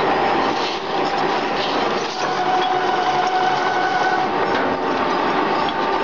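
Radiator recycling machine running, a dense mechanical clatter of many small knocks with a steady whine underneath.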